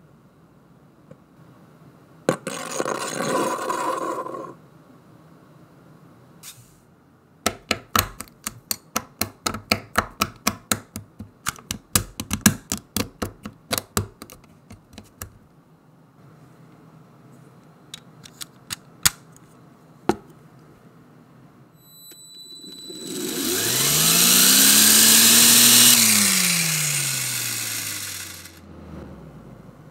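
Motorized LEGO Technic top launcher, driven by BuWizz motors, whining as it spins the top up: the pitch rises to a peak and then falls away over several seconds. Before it there is a short rattling burst and a long run of sharp clicks, about four a second.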